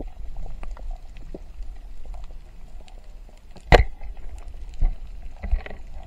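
Underwater sound picked up by a camera: scattered crackling clicks over a low rumble, with one loud sharp knock a little past halfway.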